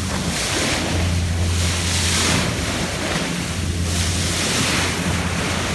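Wind buffeting the microphone and sea water rushing and splashing past the hull of a power yacht under way, with a gentle surge about once a second. Underneath runs the steady low hum of the yacht's engines.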